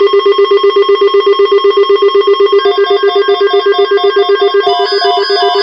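Electronic beeping tones: a loud low beep pulsing about eight times a second over steady higher tones, joined about two and a half seconds in by a higher beep repeating about three times a second, with more high beeps layered on near the end.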